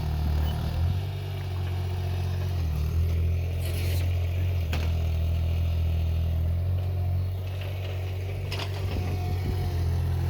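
Excavator engine running steadily with a low rumble, and a few short scrapes or knocks of the bucket working soil, the clearest about four seconds in and near the end.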